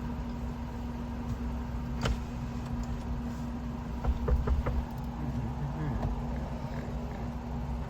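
Car engine idling steadily, with a sharp click about two seconds in and a short run of knocks about four seconds in.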